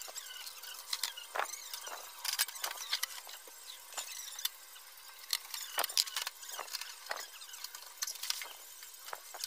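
Irregular clicks and light knocks of a Konzert AV-502 amplifier's sheet-metal top cover being handled and fitted back onto the chassis.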